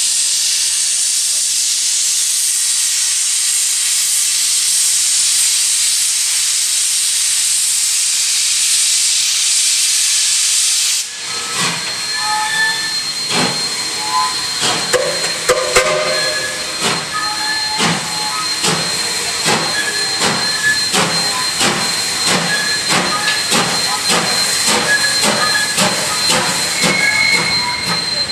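DD17 class 4-6-4T steam tank locomotive blowing off steam with a loud, steady hiss for about eleven seconds. Then the sound changes abruptly to the locomotive on the move: a run of sharp knocks and clicks that come closer together, with short high squeals.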